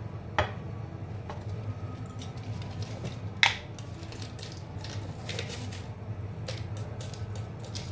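Light clicks, clinks and rustles of kitchen things being handled, with a sharp click about half a second in and a louder knock about three and a half seconds in, over a low steady hum.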